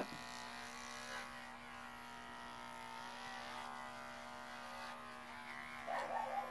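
Cordless pet clipper fitted with a 10 blade buzzing steadily as it shears a puppy's ear hair, its pitch wavering slightly as the blade works through the coat.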